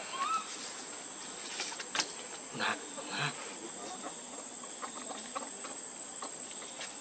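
Outdoor animal sounds: a steady high insect tone, with a short rising squeak just after the start, then a sharp click about two seconds in and two short rustling bursts soon after.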